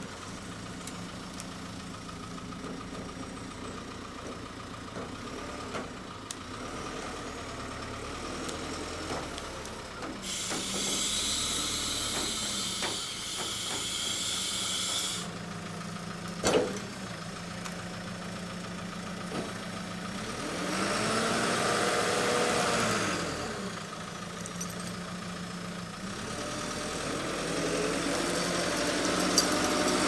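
JCB telehandler's diesel engine running steadily, revving up and back down about two-thirds of the way through as the boom lifts a heavy log on chains. A loud hiss lasts several seconds about a third of the way in, and there is a single sharp clank about halfway.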